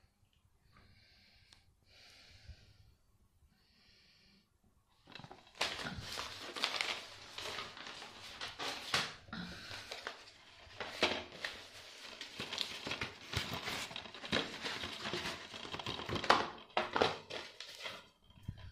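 Soft breathing close to the microphone for about five seconds, then a long stretch of loud plastic crinkling and rustling with many sharp clicks as plastic DVD cases and their wrapping are handled.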